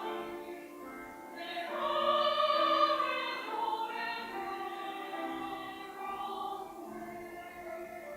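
Church choir singing a sacred anthem in sustained chords, swelling to its loudest about two seconds in and then softening.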